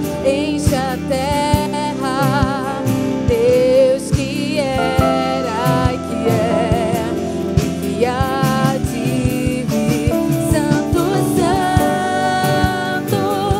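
Christian worship song: singing with a wavering vibrato over a band, with a steady drum beat.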